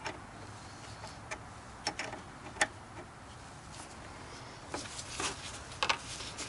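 Scattered sharp metal clicks of a wrench working a battery terminal bolt, a few spaced ticks at first and several close together near the end.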